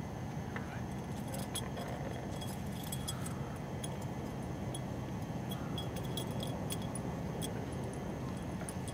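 A cat's collar tinkling: small, irregular metallic clinks as the cat moves, over a steady low background hum.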